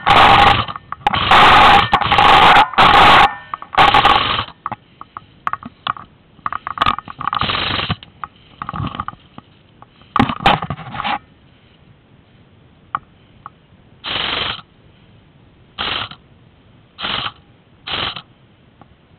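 Airsoft electric gun firing repeated bursts, each under a second, with the gearbox's steady whine in the longer ones; the bursts come thick at first, then as four short bursts about a second apart near the end.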